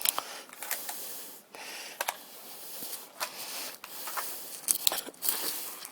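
Handling noise from a toy kit: irregular scraping and rubbing with scattered small clicks, busiest about three-quarters of the way through.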